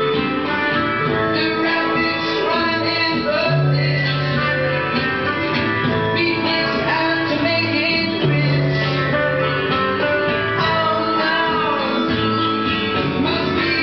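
Music with singing over a steady accompaniment, a low held note coming back every few seconds.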